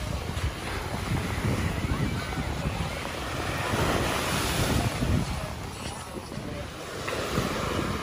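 Small waves breaking and washing up on a sandy beach, with a swell of surf about four to five seconds in, while wind buffets the microphone.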